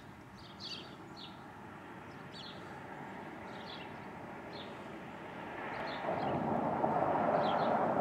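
Small birds chirping, short high calls repeated every half second or so, over a steady rushing noise that grows louder about two-thirds of the way in.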